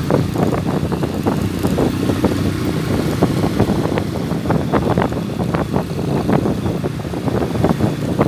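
Motorcycle engine running steadily while riding at road speed, with wind noise on the microphone.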